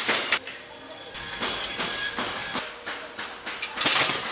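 Woodworking saw cutting wood, a loud screech with a steady high whine lasting about a second and a half, with wooden knocks and clatter before and after it.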